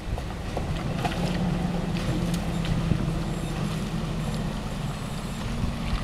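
Toyota LandCruiser 4x4 engine running low and steady as it crawls down a steep, rutted dirt bank, heard at a distance with wind on the microphone and a few scattered clicks.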